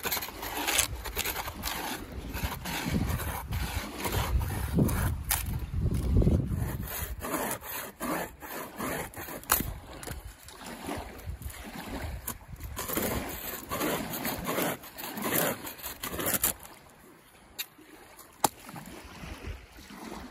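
Rotten punk wood from a dead conifer cracking and splintering as it is broken apart by hand and cut with a hand saw, in a run of sharp snaps and saw strokes. About three quarters of the way through it gives way to quieter wind and water.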